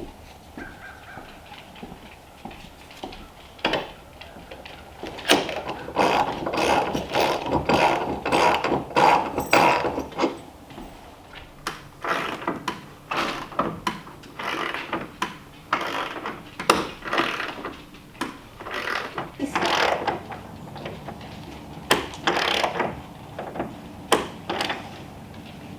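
Ratchet wrench clicking through many short, irregular strokes, driving lag bolts.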